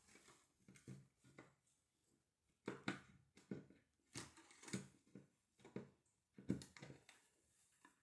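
Quiet handling noises as a mechanical hard drive is pushed into the source slot of a Sabrent USB 3.0 hard drive docking station: a run of short scrapes and knocks of the drive sliding and seating in the bay.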